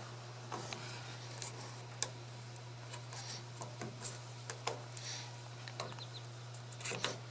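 Scissors snipping and trimming VHB tape, with a scattered run of small clicks and snips and one sharper click about two seconds in, over a steady low hum.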